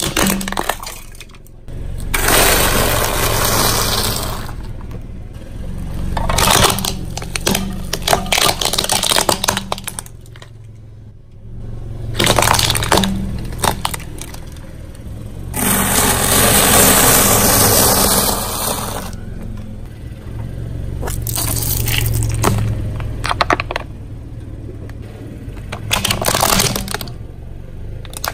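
A car tyre rolling slowly over hard plastic toys on concrete, cracking and crushing them. There are repeated sharp snaps and crackles, and several stretches of gritty crunching as one toy after another breaks under the tyre, over a steady low hum.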